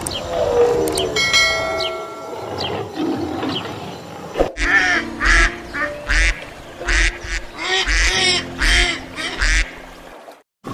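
A duck quacking repeatedly: about eight short calls spread over five seconds, starting about four and a half seconds in. Before them comes a lower, indistinct animal sound.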